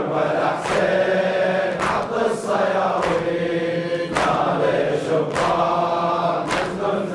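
A group of men chanting a Shia latmiyya lament refrain in unison, over a steady beat of chest-beating strikes, about one and a half a second.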